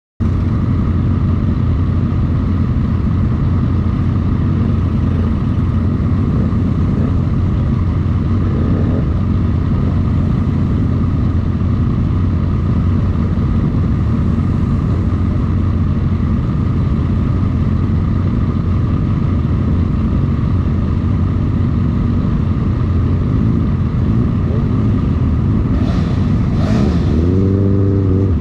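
A pack of motorcycles idling together in a steady low drone. Near the end, one engine revs up briefly and drops back to idle.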